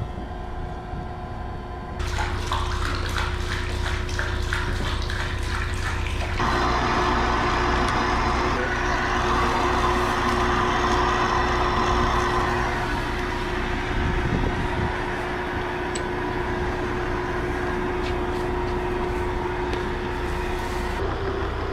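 Steady hum of an irrigation pump running, with rapid ticking for a few seconds. Then a loud rush of water sets in about six seconds in and eases somewhat after about thirteen seconds.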